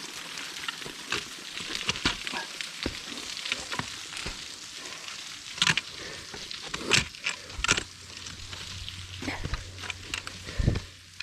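Footsteps and scuffs of a hiker picking his way over a rocky, leaf-strewn trail: irregular crackles and sharp clicks over a steady hiss, with a few louder scrapes in the middle and a dull thump near the end.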